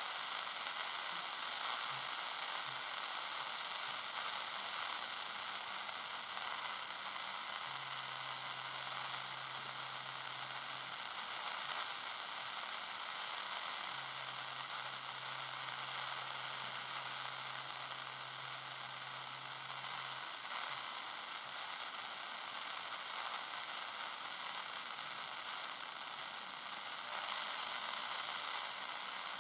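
Shortwave radio receiver hissing with static as it is tuned up through empty frequencies. A faint low hum comes in twice in the middle.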